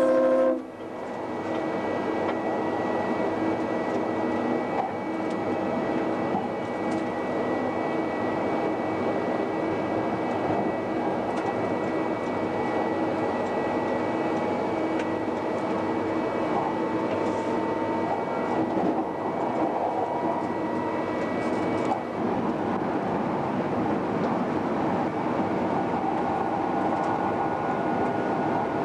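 Queensland Rail Electric Tilt Train heard from inside the driver's cab, running at speed: a steady rumble of wheels on the rails with a faint steady hum from the train's equipment. The train's horn cuts off about half a second in.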